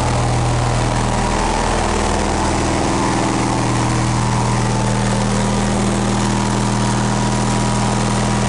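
MTD garden tractor's engine running steadily, left to run so the oil warms up before it is drained.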